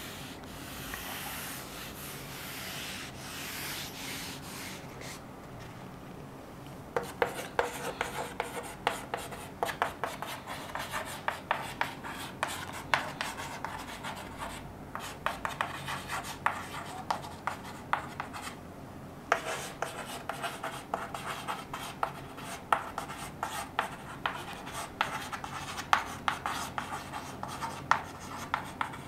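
A felt board duster rubbing chalk off a blackboard for the first few seconds, then chalk writing on the blackboard: a quick run of sharp taps and short scrapes as the chalk stick strikes and drags across the board, with a short break about two-thirds of the way through.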